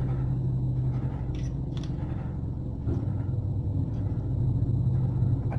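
Steady low motor-like hum, with a few faint short scrapes over it.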